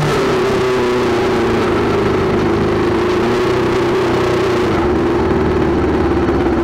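Honda 600 engine of a tubular-frame prototype race car running at steady low revs while the car rolls slowly, its pitch easing slightly in the first second and then holding.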